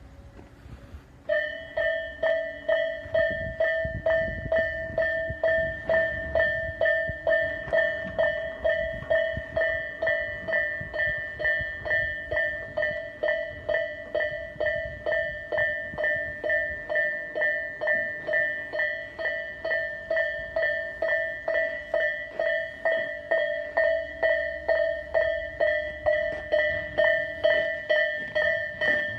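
Japanese railway level-crossing warning bell starting about a second in and ringing on in a fast, even kan-kan-kan, about two strikes a second. A low rumble, likely a train passing through the crossing, runs beneath.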